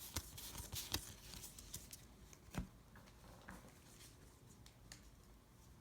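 Faint, scattered ticks and rustles of Pokémon trading cards being handled and slipped into a plastic sleeve.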